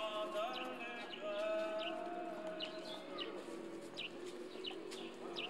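Birds chirping, short high falling calls repeating about twice a second, over people's voices.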